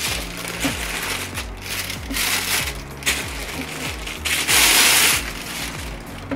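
Clear plastic bag crinkling and rustling as a mixing desk is handled and slid out of it, in several bursts; the longest and loudest comes about four and a half seconds in and lasts about a second. Background music with low notes plays underneath.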